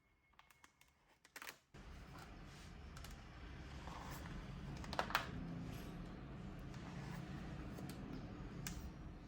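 Light clicks and taps of merchandise and its packaging being handled, with a sharper pair of clicks about five seconds in. A low steady room hum starts abruptly about two seconds in.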